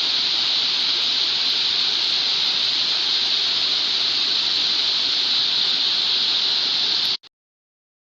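Waterfall rushing in a steady, loud hiss of falling water, which cuts off abruptly about a second before the end.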